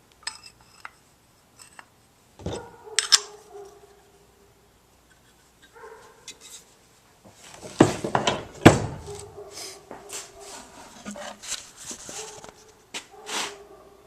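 Hand tools being handled and moved around in a tool box: a string of knocks and clatters with scraping and rubbing between them, loudest about eight to nine seconds in.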